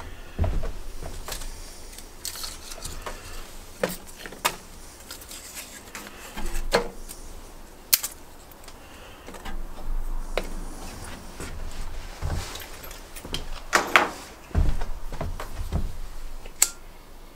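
Kindling sticks being laid over paper in a cast-iron wood stove's firebox: scattered clicks, knocks and rustles of wood against iron, with a couple of heavier thumps near the end.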